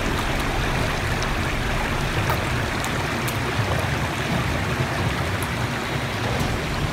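Shallow creek running over rocks, a steady rush of water, with a few faint clicks.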